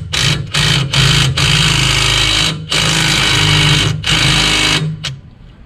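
Cordless impact wrench hammering on a tight bolt in repeated bursts, the longest about a second, with short pauses between; the bolt is not breaking loose.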